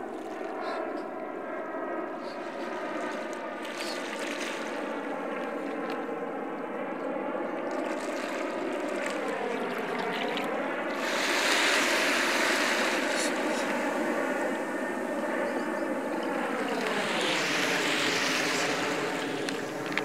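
A droning hum with several overtones. Its pitch sags and recovers about halfway through, then drops lower near the end, with two surges of rushing noise over it.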